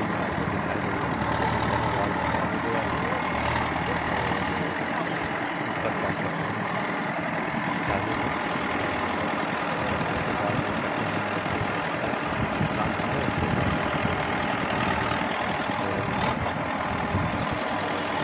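An engine running steadily, without a break.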